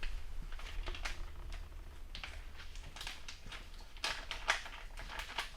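Irregular light clicking and rustling from hand work on small parts, with a few sharper clicks near the end, over a low steady hum.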